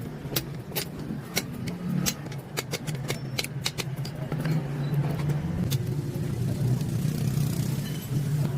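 An engine running steadily with a low hum, over a series of sharp clicks and taps during the first few seconds.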